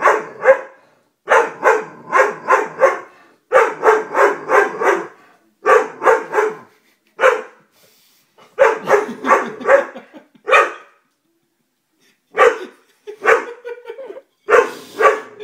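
Doberman barking repeatedly in quick runs of several barks each, with a pause of about a second and a half near the end.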